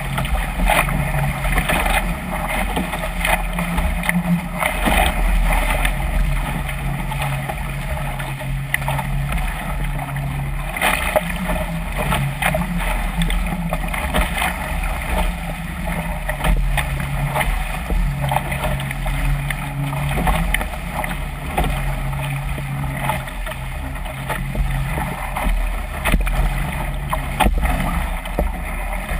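Water rushing and splashing along the hull of a Chrysler Musketeer catamaran sailing fast through waves, with frequent slaps of spray and wave hits.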